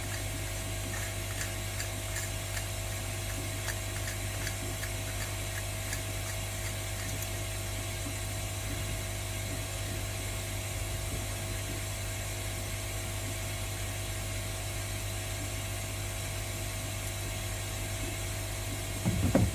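Steady low hum, with faint quick clicks for the first eight seconds or so and a short knock near the end.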